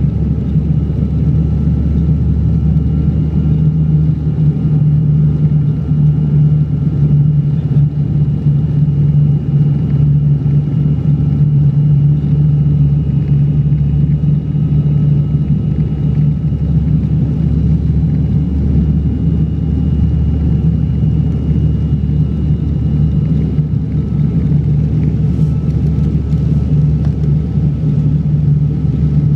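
Propeller airliner's engines and propellers droning steadily inside the cabin during the landing approach: a constant low hum with a faint steady high whine over it.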